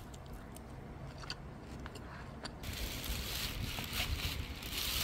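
A few light clicks of a metal spoon against a disposable bowl of fried rice. About halfway through, a sudden rustling hiss begins as a plastic takeaway tub is handled, over a steady low hum.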